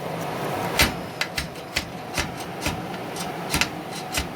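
Irregular sharp clicks and knocks, about a dozen, as parts of a Craftsman band saw are handled and fitted during reassembly.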